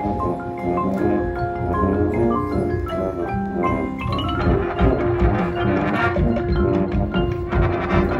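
Marching band music: marimbas and other mallet percussion playing a quick line of short, ringing notes, with percussion strokes. About halfway in the sound thickens into a fuller band texture with a long held note under busier percussion.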